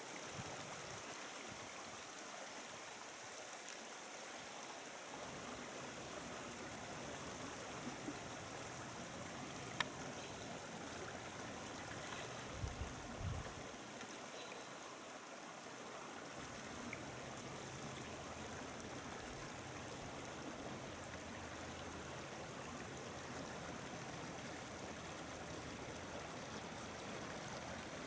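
Creek water flowing steadily and faintly, with a sharp click about ten seconds in and a brief low bump a few seconds later.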